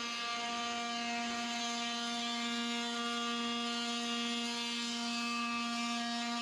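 Steady electric hum at one constant pitch, with a light hiss under it.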